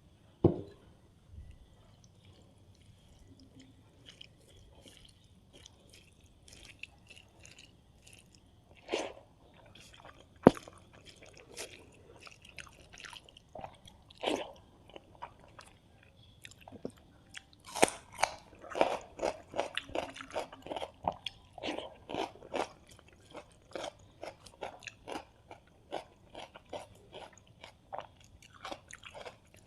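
Close-miked chewing and crunching of food, with a few sharp clicks and bites in the first half, turning into steady rhythmic chewing about eighteen seconds in.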